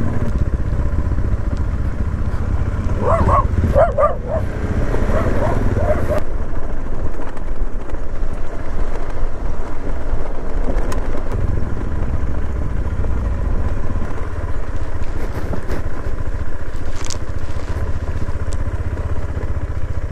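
KTM 390 Adventure's single-cylinder engine running steadily as the motorcycle rides along a gravel track. A dog barks several times between about three and six seconds in.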